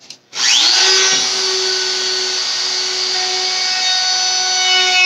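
Trim router switched on: the motor spins up with a quick rising whine about a third of a second in, then runs at full speed with a steady high whine.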